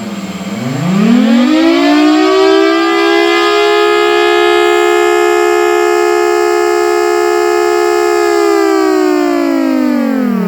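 3D-printed scale model of a Federal Signal Thunderbolt 1000T siren, its motor-driven rotor chopping air supplied by a shop vac, sounding a loud two-note siren chord. The pitch climbs from a low point about half a second in, holds steady for about six seconds, then starts to wind down near the end.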